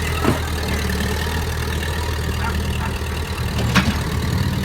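Vehicle engine idling steadily, with two short sharp knocks, one just after the start and one late on.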